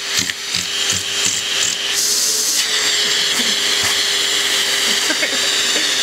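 Vacuum cleaner running steadily, its hose nozzle sucking at a cat's fur: a constant hum under a rushing hiss of air. Soft knocks and rubbing sound in the first two seconds, and the hiss changes briefly about two seconds in as the nozzle presses against the fur.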